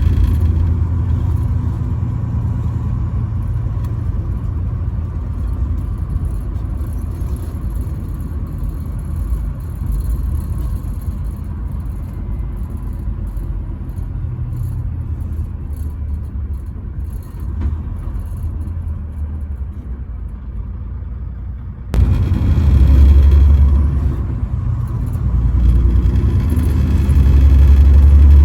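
Truck running along the highway: a steady low engine and road drone. About three-quarters of the way through it cuts abruptly to a louder, deeper rumble.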